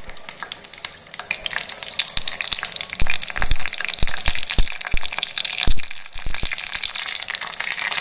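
Curry leaves and mustard seeds sizzling and spluttering in hot oil in a small tempering pan, with crackling pops all through and a few sharper, louder pops around three and six seconds in.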